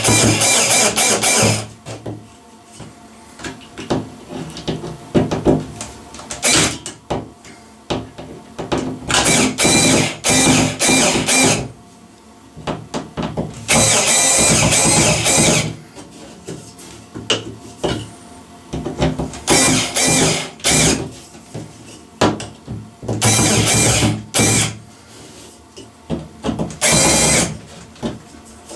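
Guild 18V cordless drill-driver running in about half a dozen bursts of one to two seconds, driving screws into the ceiling, with small clicks and handling noise in the gaps.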